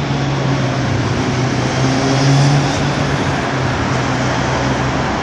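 City street traffic noise with a steady low engine hum, swelling briefly about two seconds in.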